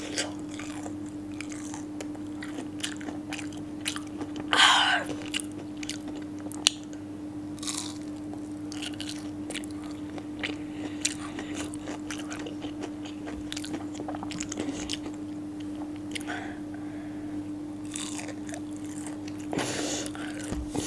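Close-up chewing and crunching of breaded fried fish sticks: scattered crisp bites and wet mouth sounds, with a louder mouth sound about four and a half seconds in, over a steady low hum.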